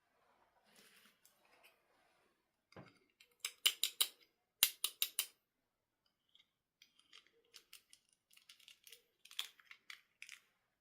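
Scissors snipping through packaging in quick runs: four sharp snips about three and a half seconds in, four more about a second later, then lighter snips and clicks.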